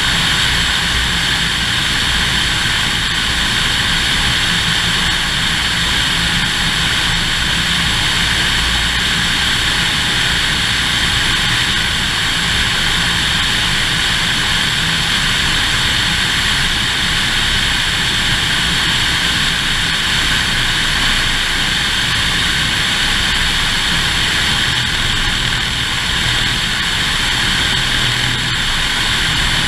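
Single-engine Cessna's piston engine and propeller running steadily in flight, with a strong, even rush of wind over a GoPro suction-cupped to the outside of the fuselage.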